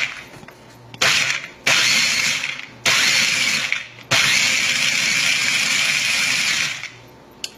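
Small electric food chopper run in pulses, chopping raisins: several bursts of motor whir that start and stop abruptly, the last and longest about two and a half seconds.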